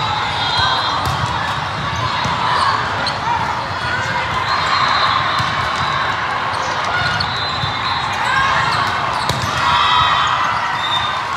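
Busy indoor sports-hall din from several volleyball courts: many overlapping voices and shouts, with scattered sharp ball hits and bounces on the court floor, echoing in the large hall.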